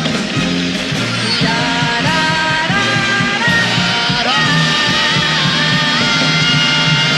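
Stage band playing an instrumental passage: held chords that shift every second or so over a steady beat.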